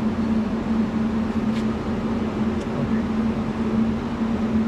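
Steady machine hum: a constant low drone with a hiss over it, unchanging, with two faint high ticks near the middle.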